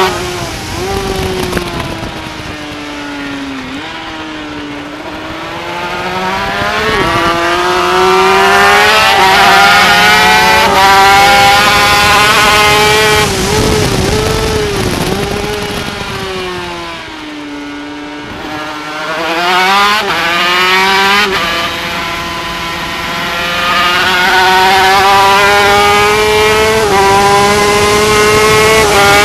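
Yamaha TZ250 two-stroke twin racing engine heard onboard at race speed, revving hard; its pitch climbs and drops back in steps as the rider changes gear. About two-thirds of the way through the engine eases off and the pitch falls, then it pulls hard again.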